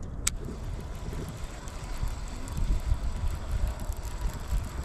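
Wind buffeting the microphone in an uneven low rumble, with one sharp click about a quarter second in.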